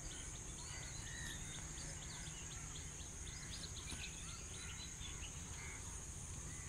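Outdoor ambience: a steady high insect drone with many small bird chirps and twitters scattered throughout, over a low rumble.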